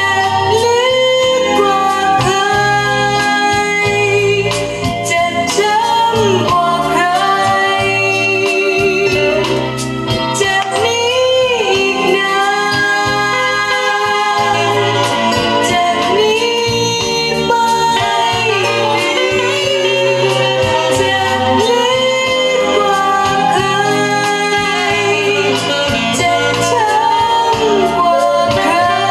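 A song with a singing voice and instrumental backing, played from a vinyl LP on a Dual 701 turntable.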